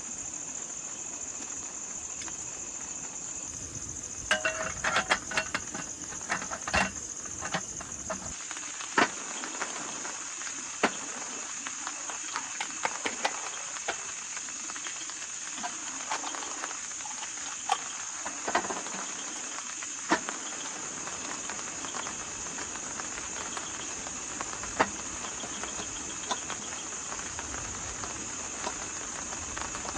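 Steady high-pitched chorus of crickets or similar insects, with scattered sharp clicks and knocks, bunched together between about four and eight seconds in.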